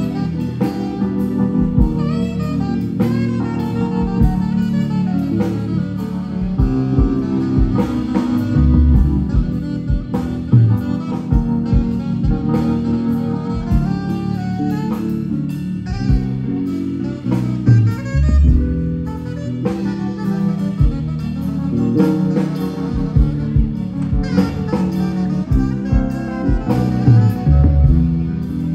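Live band playing jazz-rock with alto saxophone, drum kit and electric guitar.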